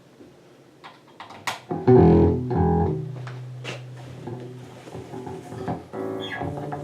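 Custom-built electric bass with Seymour Duncan passive pickups, played through an amplifier: a few sharp clicks, then two loud plucked low notes about two seconds in. One note rings on until about six seconds in, and a few more notes are plucked near the end.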